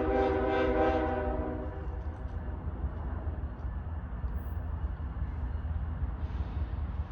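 Locomotive air horn sounding one blast of several notes together, cutting off about two seconds in, over the steady low rumble of the train.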